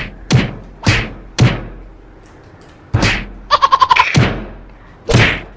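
A fist thumping down on a giant hollow chocolate Easter egg, about seven separate knocks spread across a few seconds. The thick chocolate shell holds and does not break.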